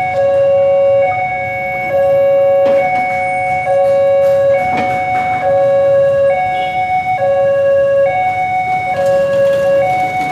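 Railway level-crossing warning alarm sounding a repeating two-tone pattern, switching between a lower and a higher tone about once a second. It is the signal that the crossing is closed and a train is due, sounding while the barriers are down.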